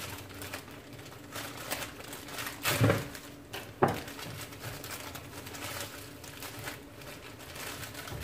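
Plastic packaging crinkling as it is cut open and handled, with a soft knock about three seconds in and a sharper tap just after.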